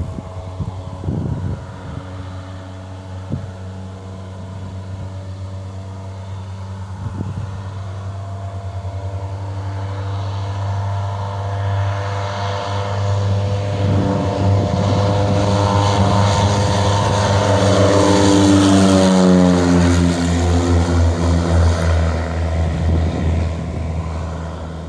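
Mooney M20J single-engine airplane taking off: its four-cylinder Lycoming engine and propeller at full power, growing louder as the plane rolls down the runway and climbs toward the listener, then dropping in pitch and fading as it passes and heads away.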